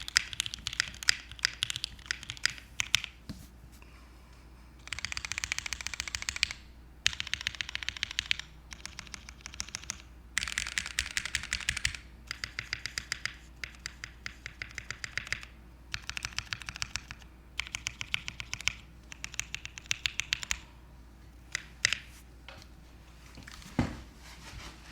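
Keychron Q7 mechanical keyboard with lubed Durock L2 linear switches, a full aluminium plate and PBT keycaps being typed on: fast runs of keystrokes lasting a second or two, separated by short pauses, thinning to a few single keystrokes near the end. A single deeper thud comes just before the end.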